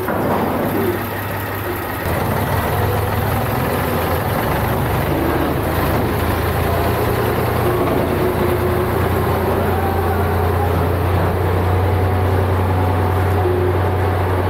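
Case/David Brown 885 tractor's engine running steadily while the loader tractor drives slowly, growing louder about two seconds in.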